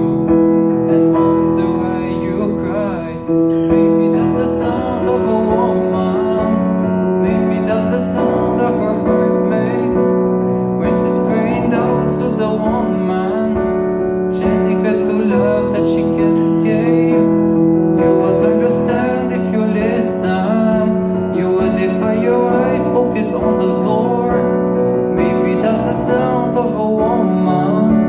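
Piano playing a slow ballad accompaniment in sustained chords, amplified through the hall's PA, with a singing voice over it at times.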